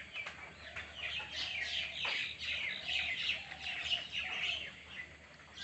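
Birds chirping and calling, many short overlapping chirps, thickest in the middle stretch, with a few lower drawn-out calls beneath.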